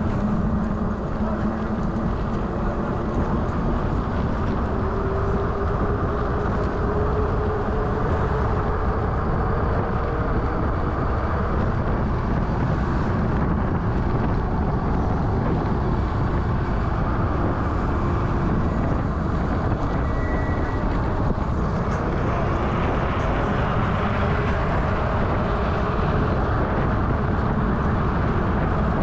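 Wind rushing over the microphone of an action camera riding along at speed, a steady low roar, with a faint electric motor whine that drifts up and down in pitch.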